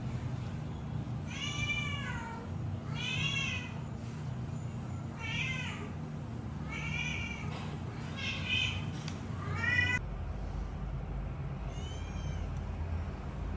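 Young kittens meowing repeatedly: about six high-pitched calls, each rising then falling in pitch, with a fainter meow near the end, over a low steady background hum.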